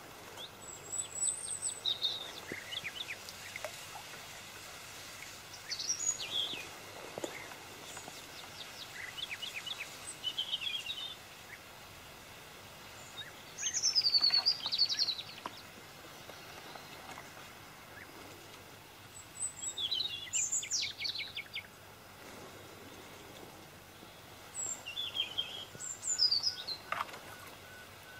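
Songbirds singing in scattered short, high chirping phrases, the loudest about halfway through, over a faint steady background hiss.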